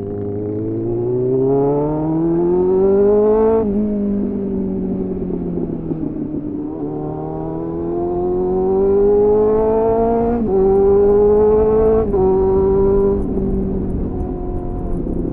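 2001 Suzuki GSF 600 Bandit's inline-four engine through an aftermarket slip-on exhaust (a clone of an SC-Project CR-T with a home-made dB killer), heard from onboard: the revs climb under acceleration and drop sharply at gear changes about four and ten and a half seconds in and again near twelve seconds, easing down in between.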